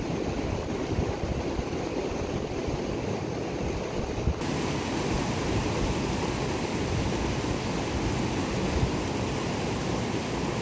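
Mountain river rushing over boulders in white-water rapids: a steady, even rush of water that turns hissier about four seconds in.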